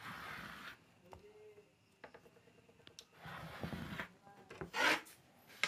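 Cloth rustling as folded blouse fabric is pulled straight and smoothed by hand, in three short spells, the loudest near the end, with a few faint ticks.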